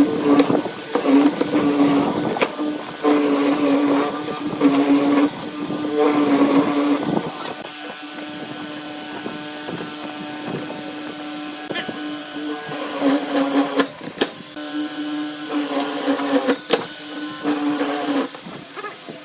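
An electric power tool running while it works wood. Its steady hum keeps breaking off and coming back, with noisier stretches and a few sharp clicks.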